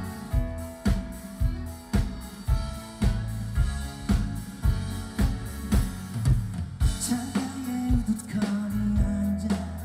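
Live band playing a pop song's instrumental passage: a drum kit keeping a steady beat of about two strokes a second under bass and guitar, with a held melody line coming in about seven seconds in.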